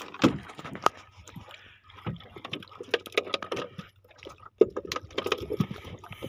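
Irregular knocks, taps and clatter of handling inside a small wooden fishing boat, over a faint low steady hum.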